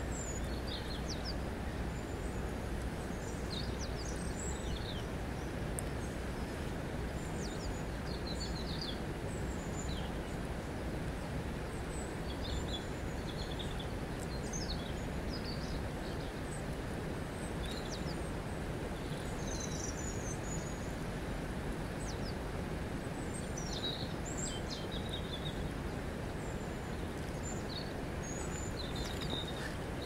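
River water flowing steadily over a stony bed, an even rushing sound, with birds chirping now and then in short high calls scattered throughout.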